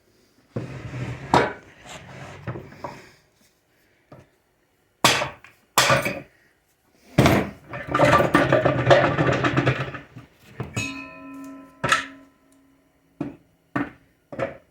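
Metal parts of a 4L60E automatic transmission being worked apart by hand: knocks and clanks with stretches of scraping and rattling. About two-thirds of the way through, a struck metal piece rings for about a second.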